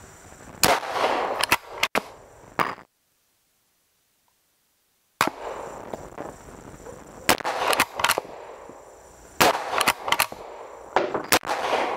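Uberti 1866 Yellowboy lever-action rifle in .45 Colt firing a string of shots, each a sharp crack with a short echo, followed by the clack of the lever working to eject the empty case and chamber the next round. There is a break of dead silence a few seconds in.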